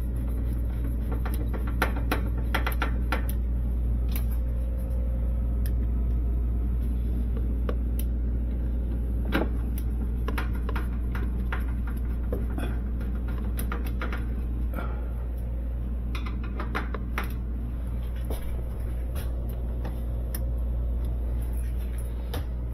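Steady low hum of the running Sub-Zero refrigerator's machinery, with scattered light clicks and taps of metal parts and screws being handled.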